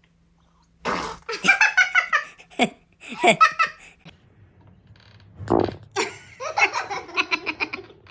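Laughter in pulsing bursts, starting about a second in after a moment of silence and coming again in the second half. A brief low burst comes about halfway through.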